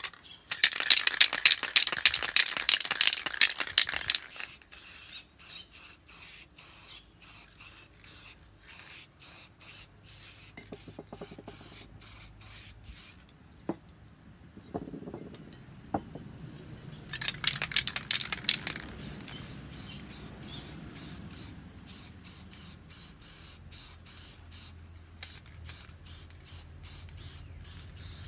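Aerosol spray paint cans hissing: two long sprays, one starting about half a second in and one in the second half, with many short bursts between them, roughly two a second. A few knocks sound in a quieter stretch around the middle.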